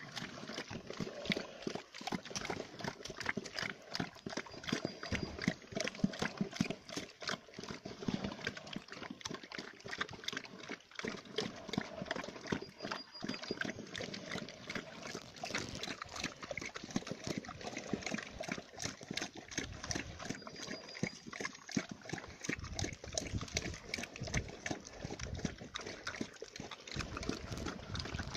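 Pigs and a horse eating wet mash from feed bowls: a dense, unbroken run of wet slurping, smacking and chomping.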